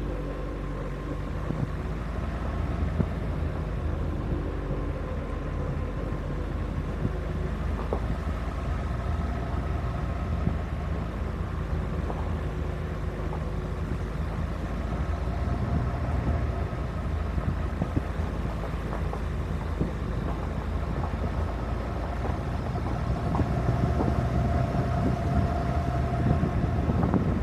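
Suzuki Grand Vitara 4x4 driving on an unpaved gravel road, with its engine running steadily under a continuous rumble of tyres and running gear, heard from the vehicle's roof. A few sharp knocks come through now and then, and it grows a little louder near the end.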